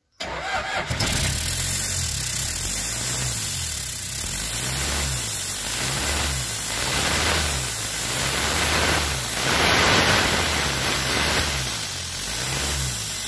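Car engine running and being revved in repeated swells, its exhaust blowing through a metal can wired onto the tailpipe as a homemade tip, giving a loud hissing exhaust note over the low engine sound.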